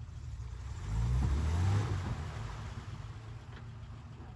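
Toyota Land Cruiser engine revving as the truck pushes through a muddy water hole, getting louder about a second in and easing off after about two seconds.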